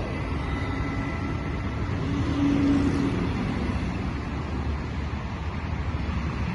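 Double-deck regional train coaches rolling past at low speed as the train pulls away: a steady rumble of wheels on the rails, with a short low hum about two seconds in.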